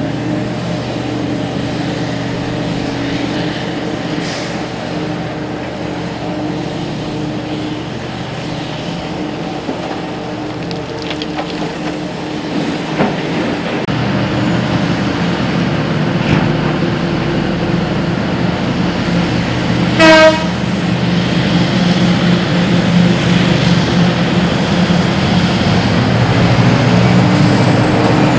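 Hitachi EX8000 mining excavator's twin diesel engines running steadily, growing louder about halfway through as they take load. A single short horn toot sounds about two-thirds of the way in.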